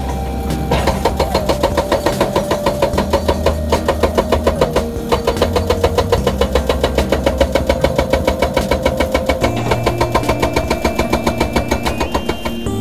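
Excavator-mounted hydraulic breaker hammering rock: rapid, even blows at about seven a second over the excavator's running diesel engine. The blows begin about a second in and stop just before the end.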